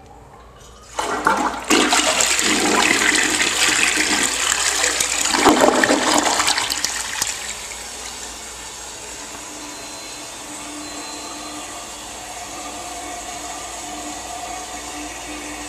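Crane toilet flushing: a sudden loud rush of water about a second in, easing off after about seven seconds into a quieter, steady hiss of running water.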